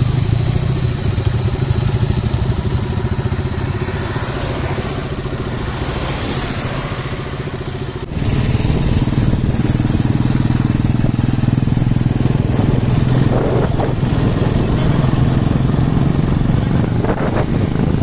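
Motorcycle engine running at a steady cruise with road and wind noise. About eight seconds in the sound cuts abruptly and the engine hum becomes louder.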